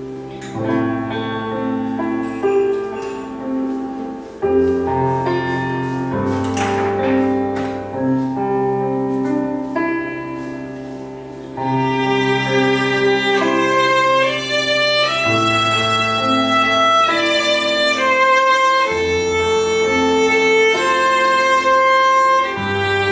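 Fusion gugak chamber ensemble playing a slow tune: piano with held bass notes under a bowed melody on the haegeum. About twelve seconds in the music grows louder and fuller.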